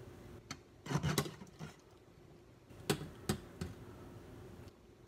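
A saucepan and wooden spoon knocking and clattering in a series of short knocks: a cluster about a second in and a few more around three seconds, over a faint steady hum.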